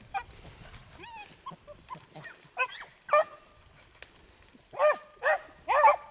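Beagles baying on a rabbit's trail: scattered, fainter bays at first, then a run of loud bays in the last few seconds.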